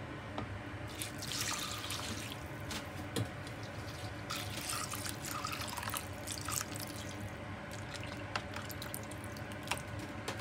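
Liquid being poured from a small bowl into a clay pot of rice and sliced shiitake. It splashes and trickles in two spells, with a few light clicks after.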